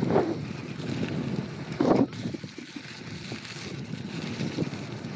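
Mountain bike rolling fast down a surfaced trail: steady tyre rumble and rattling of the bike, with wind buffeting the microphone. There is a brief louder burst about two seconds in.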